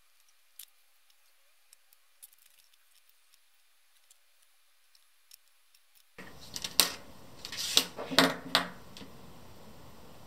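Faint clicks of small plastic model-kit parts being handled, then several sharp snips about seven to nine seconds in as sprue cutters nip plastic track links off the sprue.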